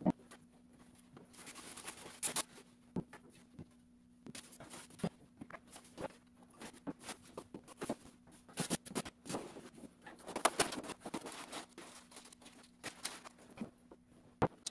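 Foam and cardboard packing being pulled out of a flat-pack desk box and dropped, an irregular run of rustles, crinkles and light knocks, over a steady low hum.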